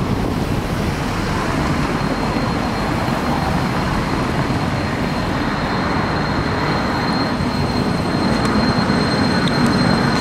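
Bombardier Variotram low-floor tram rolling slowly past at close range: a steady rumble of wheels on the street rails. A thin, steady high whine sets in about halfway through, and the sound swells slightly near the end as the cars pass.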